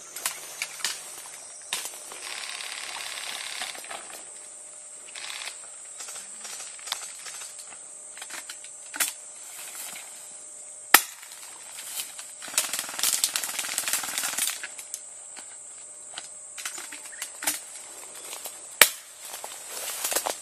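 Airsoft guns firing: a few single sharp cracks spread out, the loudest about halfway through and near the end. About two-thirds of the way in come a couple of seconds of rapid clicking and rustling through the undergrowth.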